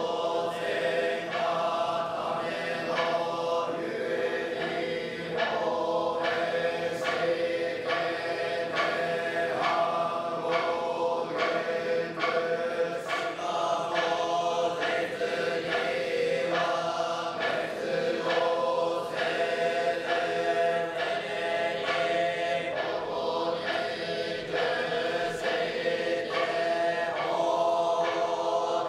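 Nichiren Buddhist monks chanting together in a slow, sustained unison chant with long held notes. Sharp clicks or strikes sound about once a second.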